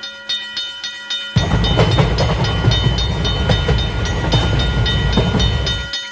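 Level-crossing warning bell ringing in a fast, even rhythm, with a train rumbling past from about a second and a half in until near the end.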